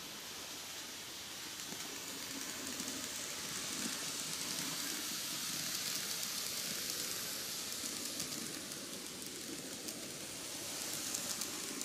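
KATO N-gauge D51 498 model steam locomotive pulling its passenger coaches along the track: a steady, hissing rattle of running gear and wheels on rail that grows louder as the train comes closer, with a few small clicks near the end.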